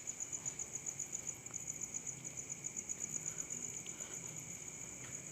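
Crickets chirping in a fast, even pulse, high-pitched, with a fainter steady high drone beneath.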